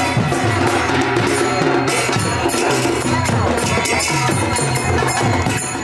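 Kirtan percussion: mridanga (khol) barrel drums beaten in a fast, steady rhythm with kartal hand cymbals clashing above, an instrumental stretch between sung verses.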